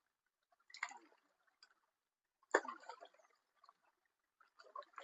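Three short splashes and sloshes of water, about a second in, midway and near the end; the middle one is the loudest and starts sharply.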